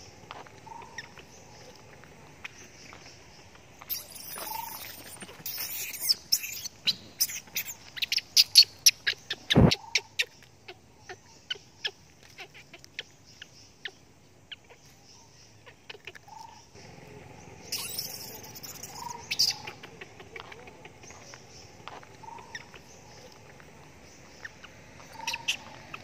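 Short, faint chirping animal calls come every few seconds. Over them run scattered sharp clicks and crackles, thickest from about six to ten seconds in, with one loud knock near ten seconds.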